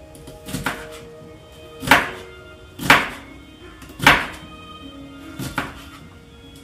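Chef's knife chopping green vegetables into small slices on a cutting board: about six sharp knife strikes on the board, roughly a second apart. Lo-fi background music plays throughout.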